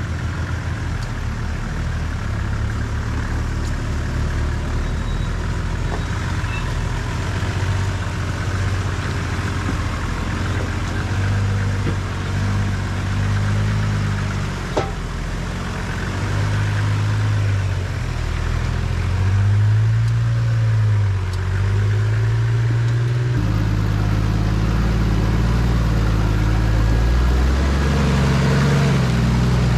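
Diesel four-wheel-drive engine running at low revs while crawling over a bush track, its pitch rising and falling as the throttle changes. A single click about halfway through, and the engine sound turns louder and fuller a little after two-thirds of the way in.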